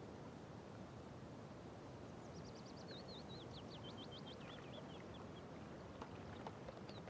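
A small songbird sings one rapid phrase of high notes that falls in pitch toward its end, over a steady low outdoor hiss. A few faint ticks follow near the end.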